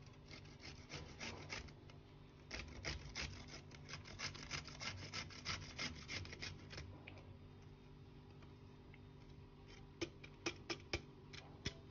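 Bottle gourd being grated on a stainless steel box grater: faint, rhythmic rasping strokes, several a second, in two runs with short pauses. Near the end come a few sharp clicks.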